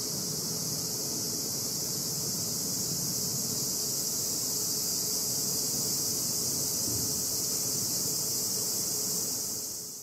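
Summer cicadas calling in a dense, continuous high-pitched drone that holds steady and fades out near the end.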